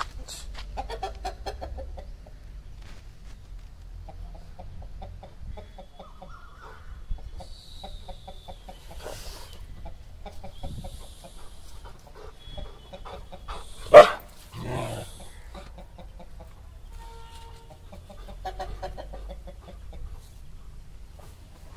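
Chickens clucking in repeated short runs, with one loud, sharp sound about two-thirds of the way through.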